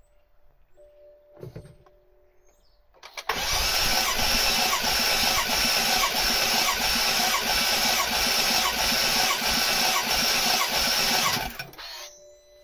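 BMW F10 M5's 4.4-litre twin-turbo V8 cranked over by the starter motor for about eight seconds without firing, its spark plugs out and fuel pump disabled for a compression test. The cranking runs at an even, regular beat, starting about three seconds in and stopping abruptly near the end. The gauged cylinder 1 comes up to about 180, a healthy reading.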